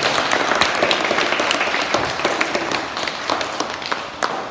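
Audience of schoolchildren and staff applauding: dense clapping that gradually thins out and fades toward the end.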